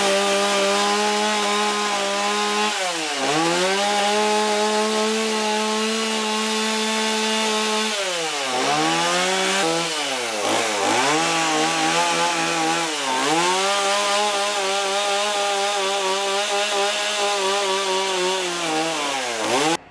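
Two-stroke Stihl chainsaw running fast and loud, its pitch dropping and recovering several times as the chain is pushed into the wood and pulled back, carving shallow up-and-down feather grooves. It cuts off suddenly near the end.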